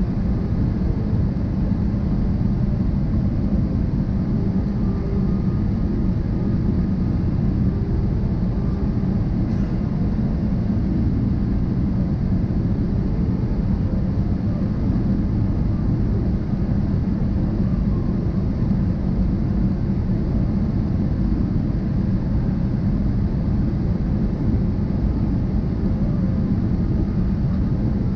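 Steady low rumble inside a jet airliner's cabin in flight, from the engines and the air rushing past the fuselage, heard from a window seat over the wing.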